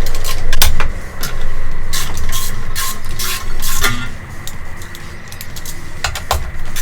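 Metal tools clinking and clicking against a dirt bike's frame and engine mount hardware as bolts are worked out, over a steady low hum.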